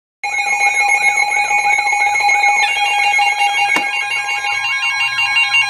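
Emergency alert tones start suddenly and loud: several electronic tones layered together, with steady tones, a warbling tone and rapidly repeated rising-falling sweeps. The mix changes about two and a half seconds in, when further stepped tones join.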